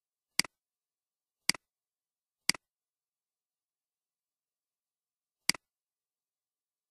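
Four computer mouse clicks, each a quick double click of button press and release: three about a second apart, then a fourth about three seconds later, with dead silence between.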